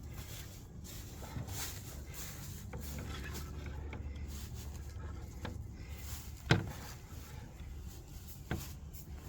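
Plastic MC4 solar connectors and MC4 spanner tools being handled as the connector is tightened down. Light scattered clicks, and one sharp click about six and a half seconds in, over a steady low rumble.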